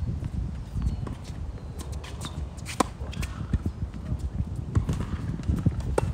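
Tennis rally: sharp pops of racket strings hitting the ball a second or more apart, the loudest about three seconds in, with footsteps on the hard court over a steady low rumble.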